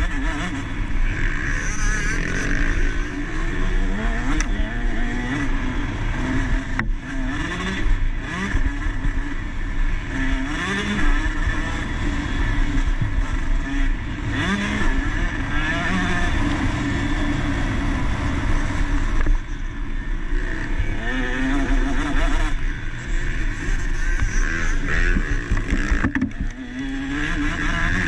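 KTM SX 150 two-stroke single-cylinder motocross bike engine racing, its pitch climbing and dropping again and again as the throttle is opened and shut, with brief lifts off the throttle.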